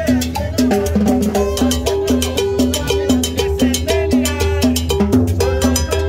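Live salsa combo playing a dance tune: drum kit with cymbal and hand percussion keep a quick steady beat over a repeating bass line.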